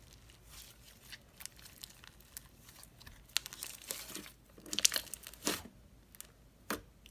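Clear slime with fishbowl beads being squeezed and poked by hand, giving irregular crunchy clicks and sticky crackles, with a few louder pops about halfway through.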